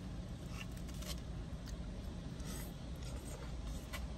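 Plastic spoon scraping and clicking against a styrofoam food cup, a few faint separate clicks over a low, steady background rumble.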